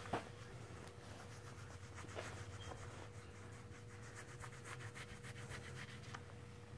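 HandsOn rubber-nubbed grooming gloves rubbing over a horse's forehead and face: a run of faint, quick brushing strokes. A soft knock comes right at the start, and a steady low hum runs underneath.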